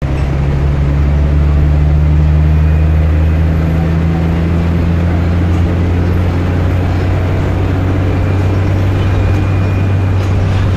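Scania bus diesel engine running steadily with a deep, even drone; one of its upper tones fades out about six seconds in.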